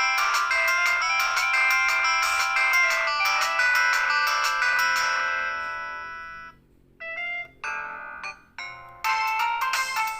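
Samsung SCH-F309 phone's polyphonic MIDI ringtones playing. One melody fades out about two-thirds of the way through, and after a short gap another ringtone begins with a few short separate notes before its full melody comes in near the end.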